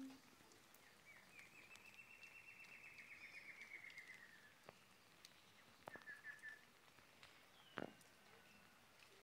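Faint bird song: a long, fast trill lasting about three seconds, then a shorter trill a couple of seconds later. A single sharp knock comes near the end.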